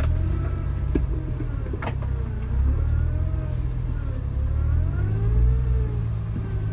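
Suzuki Jimny driving, its engine rumbling with revs rising and falling, with a few sharp knocks and clatters about one and two seconds in.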